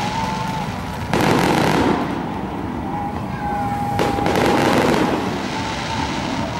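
Fireworks and firecrackers going off in a dense, continuous crackle, with two sudden louder bursts of rapid crackling, about a second in and again about four seconds in, and a few thin whistling tones over it.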